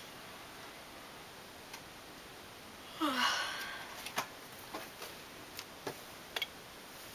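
A woman yawning, ending in a breathy, falling sigh, followed by a few faint clicks as she shifts about.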